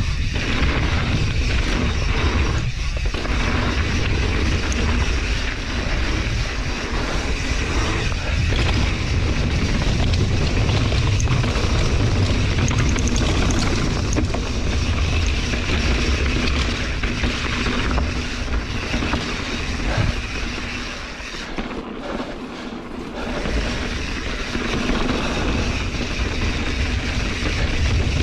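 Wind rumbling on a GoPro action camera's microphone, mixed with a mountain bike's tyres rolling fast over a dry dirt trail during a downhill run. The noise eases for a couple of seconds about three quarters of the way through.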